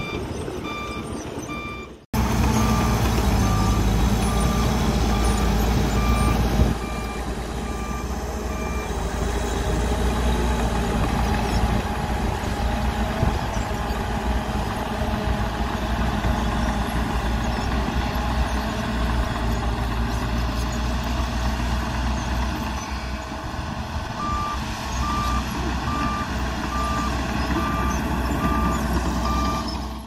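Heavy diesel engines working. A dump truck runs as it tips its load, then, after a sudden break about two seconds in, a Shantui crawler bulldozer's diesel engine works under load as it pushes dirt. A reversing alarm beeps in an even pulse for several seconds after the break and again near the end.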